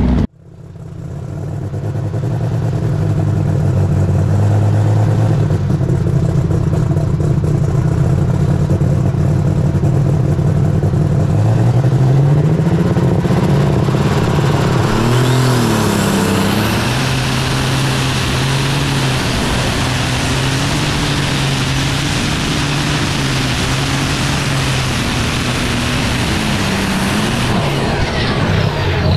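John Deere superstock pulling tractor's diesel engine working hard under load on a pull, heard from on board: a heavy, steady drone that builds over the first few seconds. Its pitch rises and wavers about halfway through as the revs change, with a high whine climbing at the same time, and then it settles back to a steady drone.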